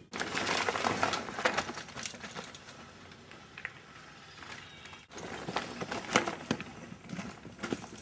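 Mountain bike rattling down a rocky trail: a dense clatter of tyres on rock and the chain and frame knocking. It breaks off for an instant about five seconds in, then picks up again.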